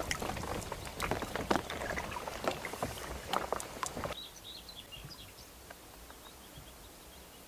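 Kayak paddling on open water: irregular paddle splashes and water slapping around the boat. About four seconds in it cuts off abruptly to a quiet background with a few faint high bird chirps.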